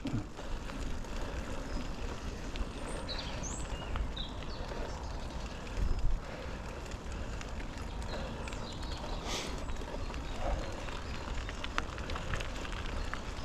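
Mountain bike being ridden on a trail: steady tyre and drivetrain rolling noise with small rattles and clicks, wind buffeting the microphone, and a brief low thump about six seconds in.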